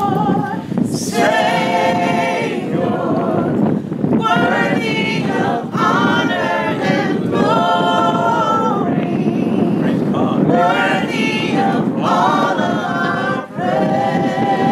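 A group of people singing a worship chorus together without instruments, a woman's voice leading, in sustained phrases with short breaks between lines.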